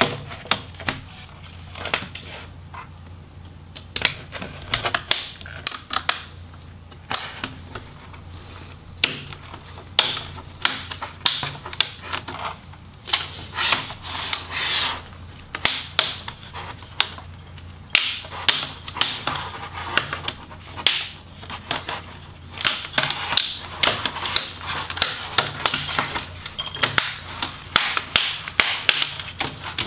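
Plastic front bezel of an Asus X550Z laptop's display assembly being pried off its back cover, its snap clips popping loose in a string of sharp plastic clicks. The clicks are sparse at first and come thick and fast from about a third of the way in.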